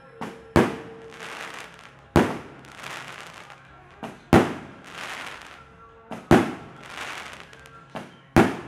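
Fireworks bursting: five loud bangs about two seconds apart, each followed by a crackling hiss that fades over about a second. Faint music plays underneath.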